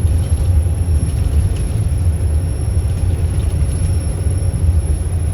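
Volvo B7RLE bus running, its diesel engine and drive giving a steady, loud low rumble.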